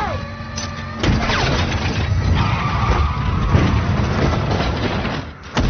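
Film sound effects of a burning car at full speed: engine and fire noise with skidding and crash effects. The sound jumps suddenly louder about a second in, and there is a sharp hit near the end.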